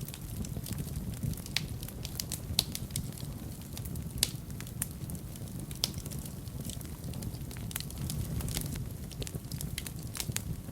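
Fire burning in a fireplace, crackling irregularly with sharp pops over a steady low rumble of the flames.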